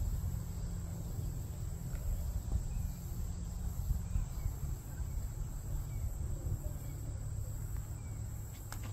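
Insects chirring in one steady high tone over an uneven low rumble.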